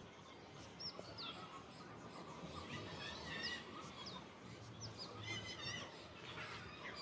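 Birds chirping: scattered short, high calls that fall in pitch, with a quick run of repeated notes about five seconds in, over steady background noise.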